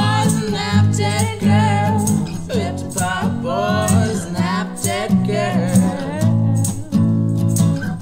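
A rock band playing a recorded song: a steady drum beat, bass and guitar, with a wavering high melodic line over the top.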